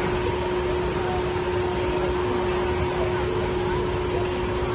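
Steady machine hum with a constant droning tone. Faint voices can be heard in the background.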